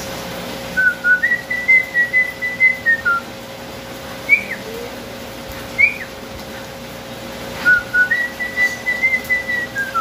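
A man whistling a short tune of quick stepped notes to cockatiels to get them to copy it. He whistles it twice, with two short sliding whistle notes in between.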